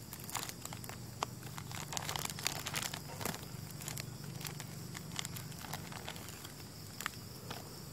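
Clear plastic sheet and polybag crinkling and rustling as gloved hands wrap and tie string around them, in a run of short irregular crackles that is busiest two to three seconds in.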